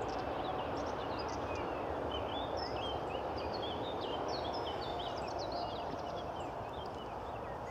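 Small songbirds singing and chirping in quick, varied phrases over a steady background hiss of outdoor noise.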